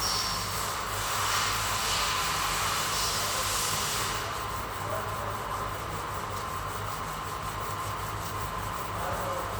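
Sandpaper rubbing over a dented panel to prepare it for body filler: continuous scratchy sanding with a low steady hum underneath.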